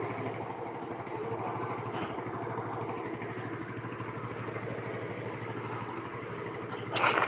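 An engine idling steadily in the background, a low even hum. A short louder noise comes about seven seconds in.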